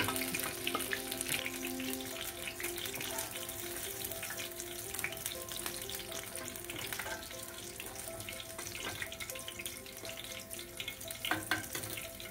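Paneer cubes sizzling and crackling as they fry in hot oil in a kadai, with a few sharper clicks near the end.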